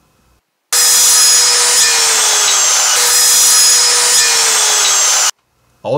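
Porter-Cable corded circular saw cutting through a 2x2 board. It starts and stops abruptly, and its motor note sags slightly as the blade loads in the cut. About halfway through, the note jumps back up and sags again.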